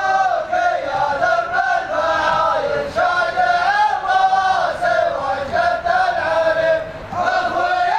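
A group of men chanting together in unison, in long drawn-out sung phrases. There is a short break about three seconds in and another near the end before a new phrase starts.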